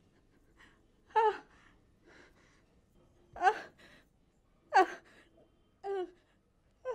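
A woman sobbing: about five short, separate cries roughly a second apart, with near silence between them.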